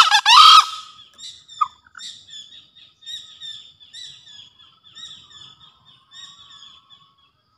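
Male green junglefowl giving one short, high-pitched crow right at the start, the loudest sound. After it, a smaller bird chirps repeated short notes for several seconds.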